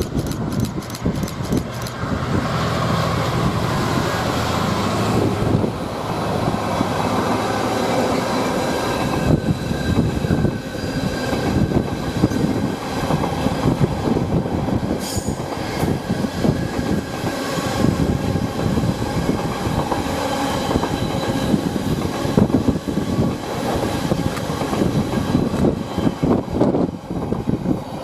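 Engineering train passing, its wagons' wheels rumbling and clattering over the rail joints without a break, with a faint steady squeal from the wheels.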